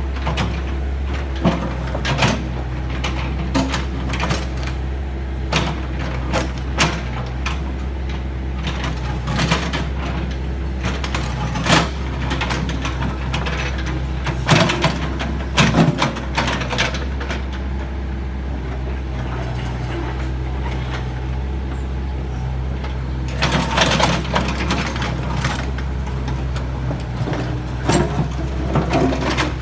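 A heavy vehicle engine running steadily at a low, even hum, with frequent sharp knocks and clanks over it.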